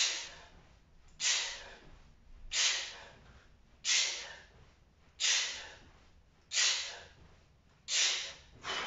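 A man's sharp, forceful exhales, one with each rep of a one-handed 92 kg kettlebell lift, coming evenly about every 1.3 seconds: effortful power breathing under a very heavy load.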